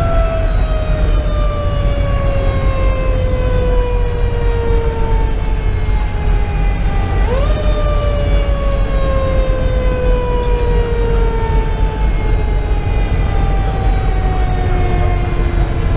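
Federal Q2B mechanical siren wailing from inside the fire engine's cab. It spins up quickly twice, about seven seconds apart, and each time winds slowly down in pitch. Under it runs the steady low rumble of the engine's 470 hp Detroit Series 60 diesel and the road.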